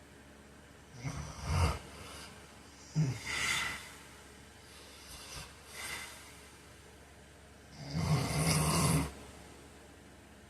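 A man snoring in his sleep: a snore about a second in, another breath-snore around three seconds, two faint breaths, then the loudest and longest snore, over a second, near the end. A steady hiss runs underneath.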